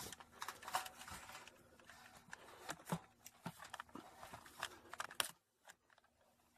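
Hands digging through loose-fill attic insulation: irregular rustling and crunching with scattered clicks, stopping about five seconds in.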